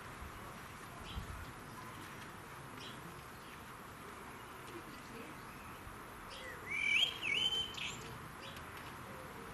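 Garden songbirds calling: faint short chirps about once a second, and a louder whistled, warbling phrase about seven seconds in.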